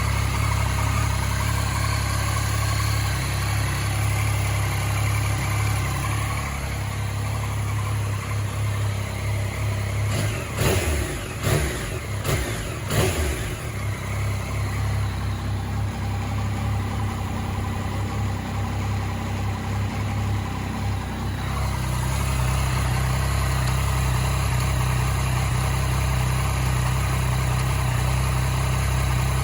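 2014 Yamaha MT-09's 847 cc inline-three engine running at idle, given a few quick throttle blips about ten to thirteen seconds in. It is the engine from which the owner reports a clicking noise.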